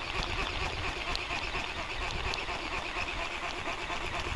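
Outdoor riverbank ambience: a steady hiss and low rumble with a band of faint bird chatter.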